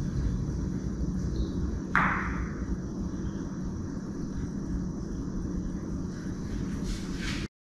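Carom billiard balls rolling after a shot, with one sharp click of ball striking ball about two seconds in, ringing briefly. A steady low rumble of room noise runs underneath.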